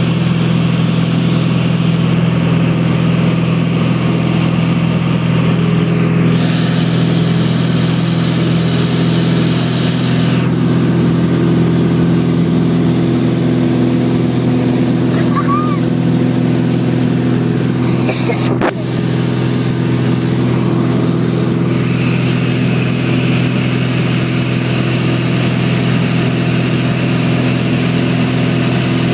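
The engine and propeller of a 1958 Cessna 172 (a Continental O-300 six-cylinder) heard from inside the cabin in cruise flight: a steady, loud drone with rushing air noise. There is a single brief click about two-thirds of the way through.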